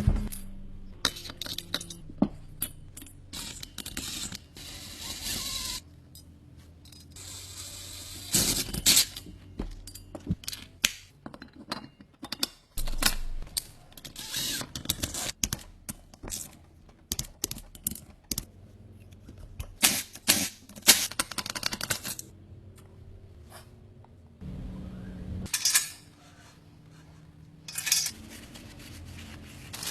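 Irregular metallic clinks, knocks and scrapes of tools and metal parts being handled, with a few longer noisy stretches and louder knocks.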